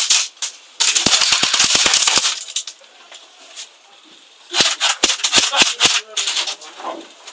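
Airsoft rifles firing: a rapid burst of sharp snaps lasting about a second and a half, starting about a second in, then a second string of about eight quick shots around five seconds in.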